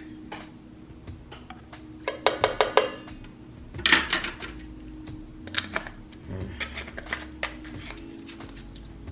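Clinking of a glass vanilla extract bottle and measuring spoon handled over a steel mixing bowl: a quick run of about five sharp clinks about two seconds in, a louder clatter near four seconds, then scattered light taps. Soft background music plays underneath.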